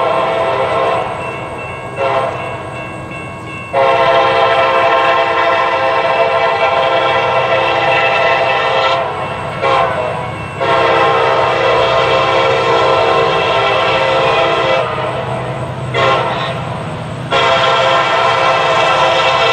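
Rebuilt EMD SD70MAC freight locomotive's multi-chime air horn blowing a series of long blasts with short breaks between them, over the steady low rumble of the diesel engines working in notch 8 (full throttle).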